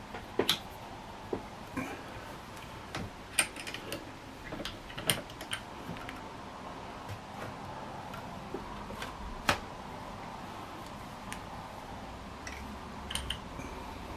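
Irregular light clicks and knocks, a few of them sharper metallic clinks, from an air rifle and its steel parts being handled in a bench vise.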